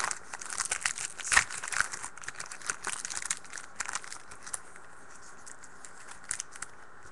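Trading card pack wrapper being torn open and crinkled, a dense run of crackles that thins out about four and a half seconds in, with a couple of faint ticks after.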